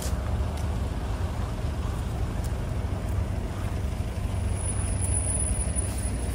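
Traffic on a busy city road: a steady rumble of passing vehicles.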